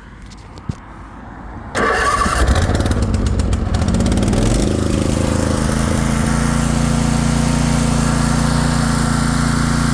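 Craftsman zero-turn mower's 24 hp Briggs & Stratton engine being started on choke. It fires up suddenly about two seconds in, runs roughly as it picks up speed, then settles into a steady run.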